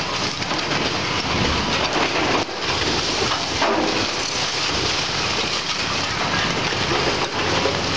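Case excavator tearing apart a wood-framed building: a steady crackling and crunching of splintering timber and falling debris over the excavator's diesel engine.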